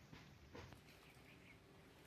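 Near silence: faint outdoor garden ambience, with two soft taps in the first half-second and a few faint, short high chirps about a second in.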